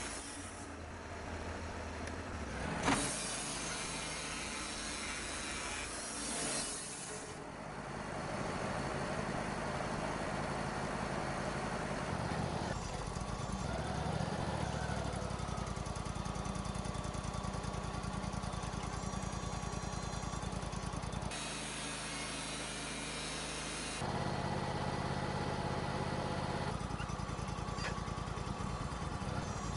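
Wood-Mizer portable sawmill's engine running steadily as logs are milled, its note shifting a few times. There is a brief sharp knock about three seconds in.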